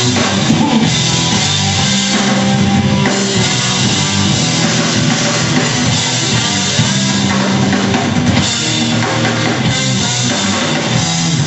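Rock band playing live, drum kit and electric guitar over long held bass notes.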